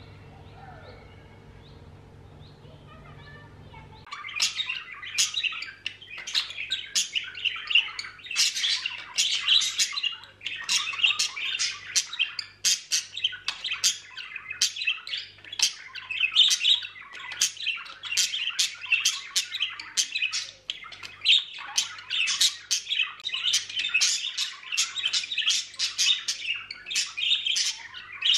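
Budgerigar chattering and warbling: a fast, unbroken run of high chirps, clicks and squawks. It starts suddenly about four seconds in after a quiet opening and continues without a break.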